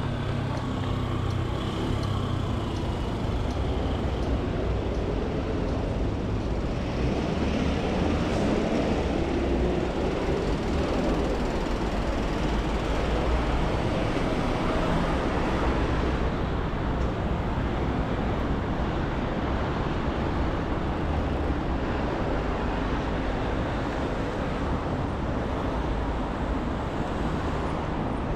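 Steady city road traffic going by, with vehicle engines and tyre noise.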